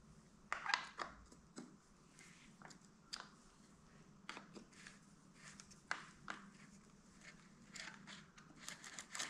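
Faint, irregular clicks and taps of hand tools and metal parts being handled on a mountain bike's rear shock mount, with a louder cluster of clicks just under a second in.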